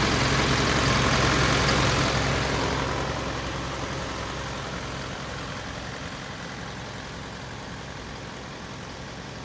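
Isuzu Elf truck's engine idling steadily. It is loud at first, then grows gradually quieter from about two seconds in.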